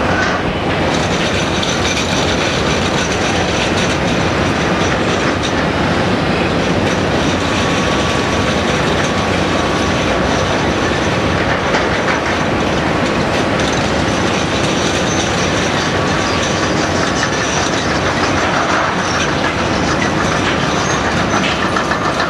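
Excavator-mounted road header, a rotary cutting drum on a Komatsu PC228, grinding into rock. The grinding rattle is steady and dense and does not let up.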